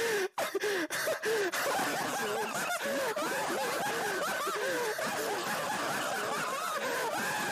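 Laughter at a joke's punchline: separate quick laughs in the first second and a half, then several laughs overlapping into steady layered laughter.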